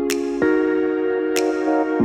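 Background music: sustained synthesizer chords that change about half a second in, with a percussive hit twice.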